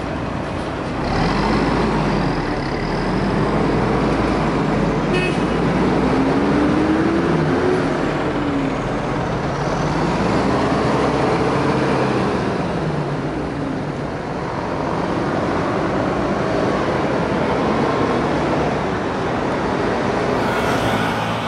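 City bus engine pulling away and accelerating, its pitch rising and then dropping at each gear change, several times over, with street traffic around it.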